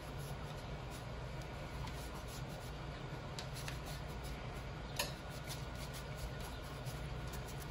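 Paper towel rubbing and wiping the plastic frame and motor hub of a Corsair PC fan, with faint rustling, scattered light clicks of handling, and one sharper click about five seconds in, over a low steady hum.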